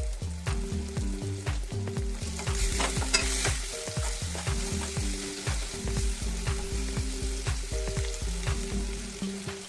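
Food frying and sizzling in a pan while a spatula stirs it, with short scraping clicks against the pan; the sizzle rises about three seconds in.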